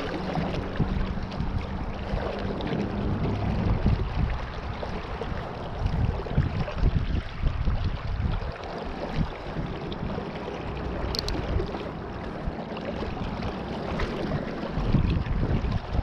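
River water rushing over a rocky riffle, with uneven gusts of wind rumbling on the microphone. A single short click about eleven seconds in.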